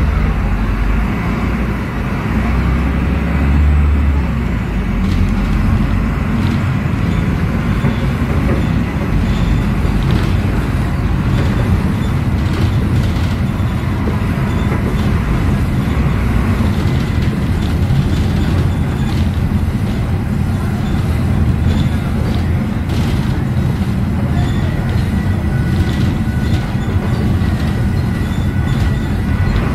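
Volvo B9SALF articulated bus heard from inside the cabin while driving: its Volvo D9B diesel engine and Voith automatic gearbox running with a steady low rumble. Body panels and fittings rattle and click over it, and a faint steady high whine joins near the end.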